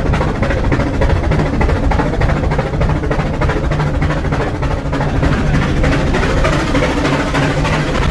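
Rack-railway steam locomotive working hard uphill, its exhaust chuffing in a fast, steady rhythm of beats, with a steady low machinery hum underneath.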